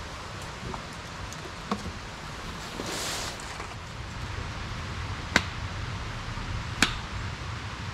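Steady outdoor hiss with three sharp clicks, the loudest about halfway through, and a brief high whoosh about three seconds in.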